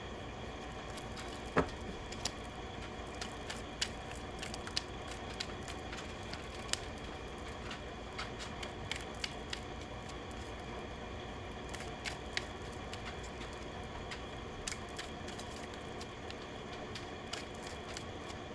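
Tarot cards being handled, with irregular light clicks and taps as cards are shuffled and set down, over a steady background hum.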